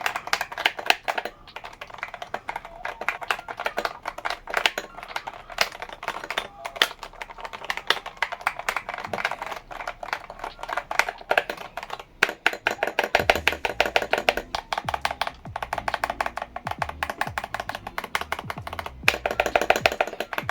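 Fast, continuous typing on a Lofree Touch 68-key wireless mechanical keyboard with linear red switches and PBT keycaps. It is a quick run of light clacks with no tactile click, which the owner calls quite silent.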